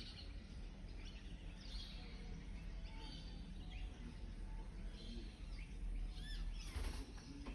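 Faint, scattered chirps of birds over a steady low rumble of background noise, with a brief scratchy burst near the end.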